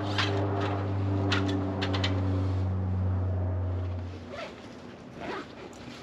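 Power drill driving a screw into wooden framing: its motor runs steadily for about four seconds, then stops, followed by a couple of light knocks.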